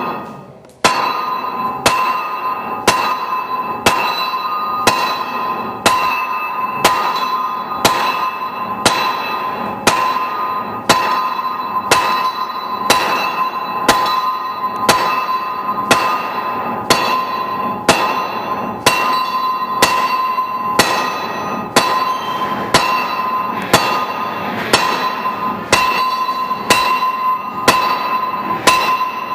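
Sledgehammer blows on hot steel set in a Hofi anvil, offsetting the bar, about one blow a second in a steady rhythm. Each strike rings high and metallic, and the ring carries on between blows.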